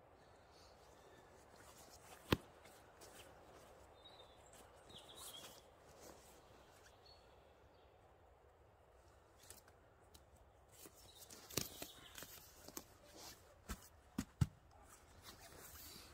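Faint rustling and handling noise as a rolled bedroll is strapped up: one sharp click a couple of seconds in, then a run of clicks and taps past the middle.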